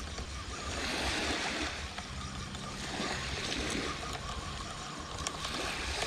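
Small waves washing in on a shingle beach, the wash swelling twice, over a low wind rumble on the microphone.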